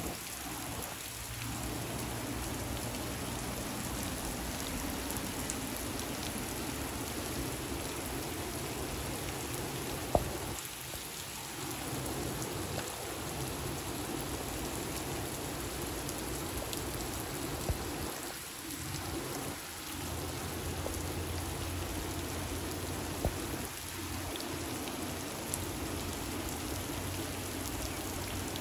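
Heavy rain falling steadily on wet, puddled ground and trees, a constant even hiss. A few sharp taps of nearby drops stand out, the loudest about ten seconds in.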